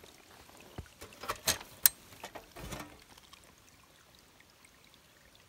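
Hinged metal lid of a trailside map box being lifted open: a quick cluster of clicks and metallic knocks, the sharpest just under two seconds in, then quiet.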